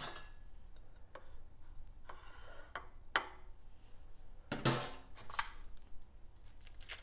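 Metal kitchen utensils clicking and clinking against a ceramic plate and a baking tray: a spoon scraping across the plate, then metal serving tongs picked up and clacked, the loudest clicks about five seconds in.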